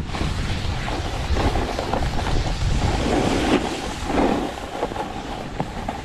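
Snowboard sliding and scraping over packed snow as it carves downhill, with a hiss that swells and fades, and wind rushing over the microphone.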